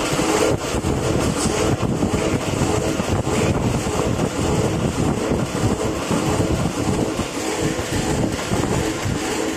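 Adhesive-tape PP single packing machine running steadily: a continuous mechanical running noise from the wrapper and its conveyor as bagged tape rolls are carried out.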